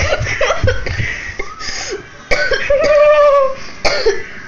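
People laughing hard in breathy, cough-like bursts, with a drawn-out high note partway through.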